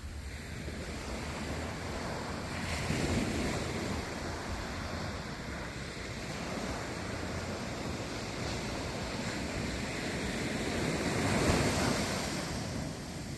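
Waves surging and washing in, swelling about three seconds in and again near the end, with wind rumbling on the microphone.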